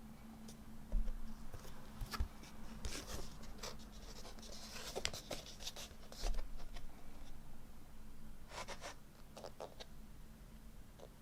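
Vinyl record packaging being handled: cardboard and paper sleeves rustling and scraping in short bursts, with a few soft knocks.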